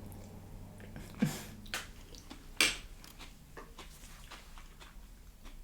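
Close-miked chewing of a homemade tostada: soft wet mouth clicks, with two louder sharp mouth sounds about a second and two and a half seconds in.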